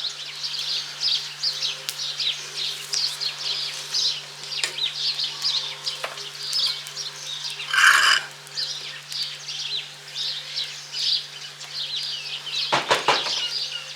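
Small birds chirping steadily in quick, high-pitched bursts, with one louder, fuller call about eight seconds in. A steady low hum sits underneath.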